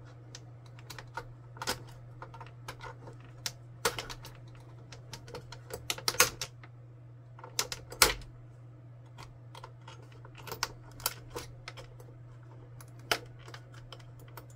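Irregular small clicks and taps of a thin metal tool prying at a spring and plastic latches on an inkjet printer's carriage rod, the sharpest about four, six and eight seconds in, over a steady low hum.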